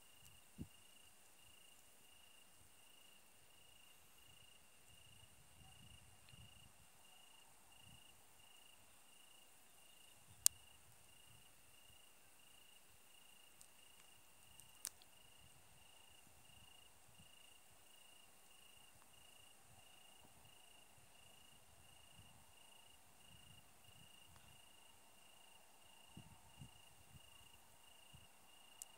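Faint crickets chirping in an even rhythm, about two chirps a second, over a thin steady high hiss. A couple of sharp clicks stand out, the loudest about ten seconds in.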